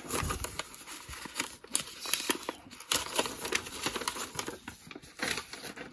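White paper mail envelope being pulled open and handled: irregular paper rustling and crinkling.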